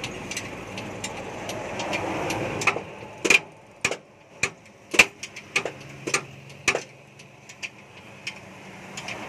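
Sharp metallic taps and clinks of hand tools on the steel leaf spring and its mountings, about a dozen at uneven spacing starting about three seconds in and fading to lighter ticks. A steady mechanical rumble fills the first few seconds.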